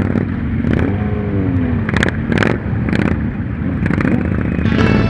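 Motorcycle engines running at low speed in a slow-moving group, with a few sharp knocks on the bike-mounted microphone. Music comes in near the end.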